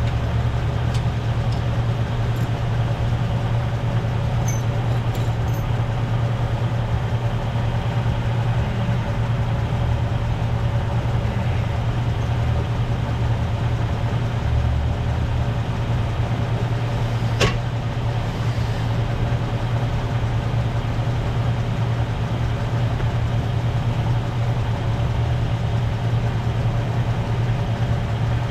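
A vehicle engine idling steadily, with one sharp click about two-thirds of the way through.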